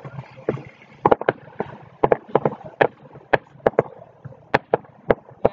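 Fireworks going off: a run of sharp, irregular cracks and pops, several a second.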